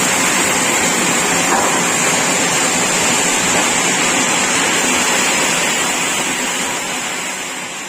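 Sawmill machinery running steadily with a constant noisy whir and a high hiss. It fades out near the end.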